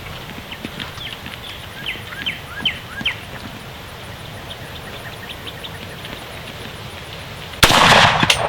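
Several short bird chirps over a steady low outdoor rumble, then near the end a single sudden, loud 300 Blackout rifle shot, followed by a couple of smaller knocks.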